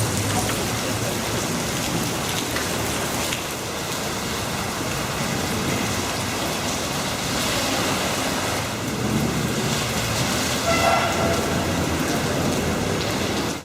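Heavy rain pouring down in a steady, unbroken wash.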